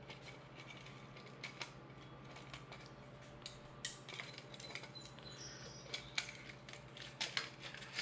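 Faint, scattered clicks and snips of diagonal cutters working at a zip tie that bundles wiring in the scooter's handlebar head, with small plastic and wire handling ticks between.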